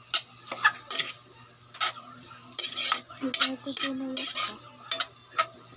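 A metal ladle stirring ground pork in a wok, scraping and knocking against the pan in uneven strokes, with the meat sizzling under it.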